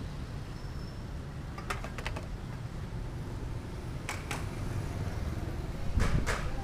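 Steady low rumble of a motorcycle riding on the road, with a few sharp clicks or rattles in quick pairs about two, four and six seconds in, the last pair the loudest.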